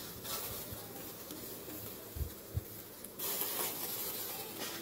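Charcoal grill hissing and sizzling under a whole skewered chicken roasting over the flames, with two short low thumps a little over two seconds in; the hiss gets louder about three seconds in.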